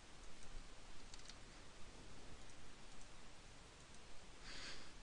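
Faint computer mouse clicks over a steady low background hiss, with a short soft rush of noise near the end.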